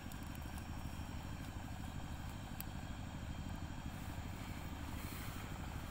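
A motor running with a steady low hum, and a faint click about two and a half seconds in.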